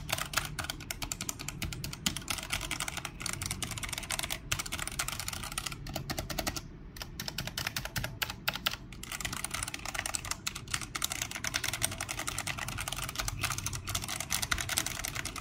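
Typing on a Rexus Legionare MX9 mechanical keyboard with Outemu red switches: a fast, steady run of key clacks, with a brief pause about seven seconds in.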